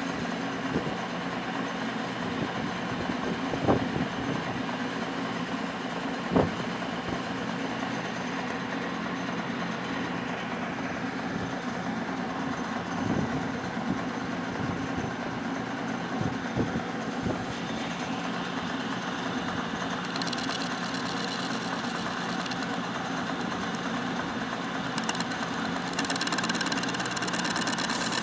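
Lathe running with a steady machine hum and a few sharp knocks in the first several seconds. About two-thirds of the way in a higher-pitched sound joins, becoming louder near the end.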